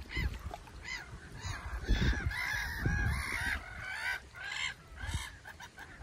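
A flock of gulls calling over open water, many short arched calls overlapping, thickest in the middle of the stretch. Low thumps sound under the calls now and then.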